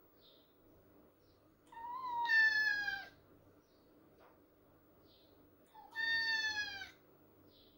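A kitten left alone at home meowing twice, each call about a second long and falling in pitch at the end.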